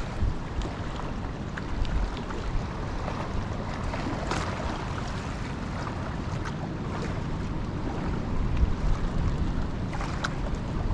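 Wind buffeting the microphone: a steady low rumbling noise that swells and eases with the gusts, with a few faint ticks.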